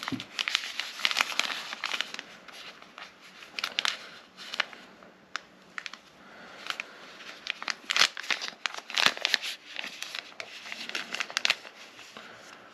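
Packaging crinkling and tearing as accessories are unwrapped, with many irregular sharp crackles and clicks.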